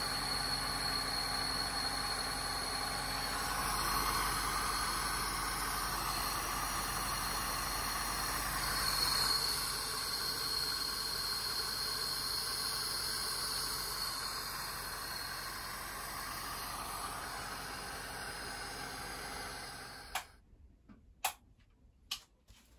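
Lada Niva's four-cylinder engine running steadily, turning a swapped-in Bosch alternator from a diesel Mercedes that is charging the battery at about 14.4 V. About twenty seconds in, the sound drops away to near silence, broken by a few sharp clicks.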